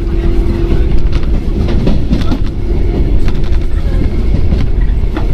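Running sound inside a JR 115-series electric motor car (MoHa 114): a steady rumble of wheels on the rails with repeated clicks over rail joints. A steady hum is heard early on and fades away around the middle.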